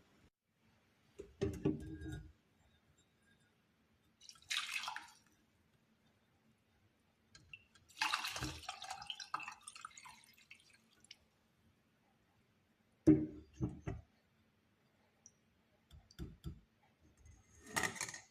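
Lemon, parsley and clove infusion being poured and dripping in short splashing spells, a little after 4 s, for a couple of seconds from about 8 s, and near the end. Between them come dull knocks of kitchen utensils and a few small clicks.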